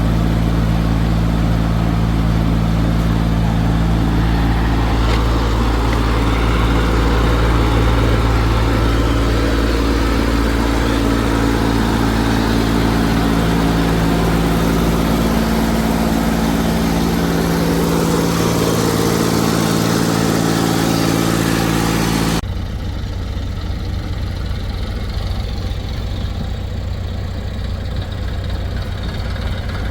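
Diesel engines of working heavy machinery running steadily, with a sudden change about two-thirds of the way through to a quieter engine sound.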